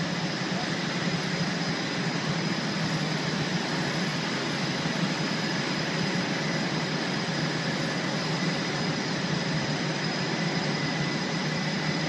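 Steady loud aircraft-hangar noise: a constant low rumble and hiss with a thin steady whine over it.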